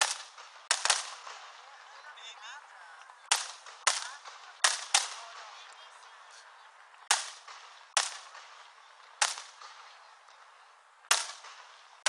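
Aerial fireworks shells bursting overhead: about ten sharp bangs at uneven intervals, some in quick pairs, each trailing off in a short echo.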